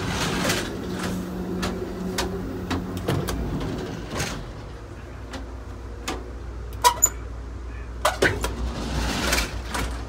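Amtrak Superliner train in motion, heard while crossing between cars: a steady low rumble with repeated sharp clanks and rattles, and the hiss of a push-button sliding end door.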